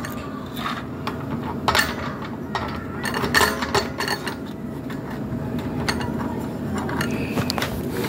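Metal clinks and clicks of a spanner on the bolts of an electric water heater's heating-element flange, a handful of sharp taps scattered through.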